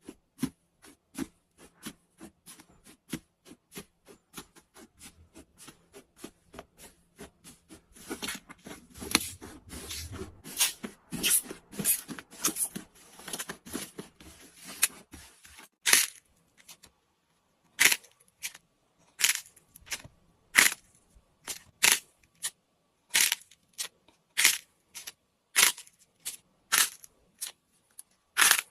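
Slime being handled and pressed, making short sharp clicks and pops: faint, regular clicks at first, then a stretch of dense crackling about eight seconds in, then louder separate pops about once a second.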